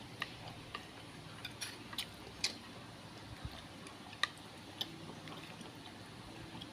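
Eating sounds: scattered light clicks and taps at irregular intervals, the loudest about two and a half and four seconds in.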